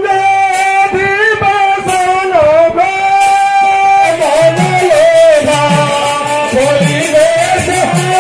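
Devotional kirtan: singing in a slow melody of long held, sliding notes over instrumental accompaniment. From about halfway a drum beats roughly once a second under rapid light ticks.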